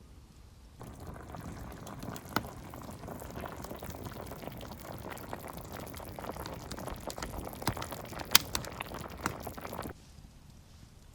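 Food cooking over a campfire, bubbling and crackling steadily with a few sharp pops. It starts suddenly about a second in and cuts off suddenly near the end.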